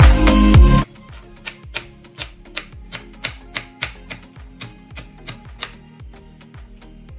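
Loud dance music with a heavy beat cuts down about a second in. A chef's knife then chops fresh herbs on a plastic cutting board in quick steady strokes, about three a second, stopping shortly before the end, with the music faint underneath.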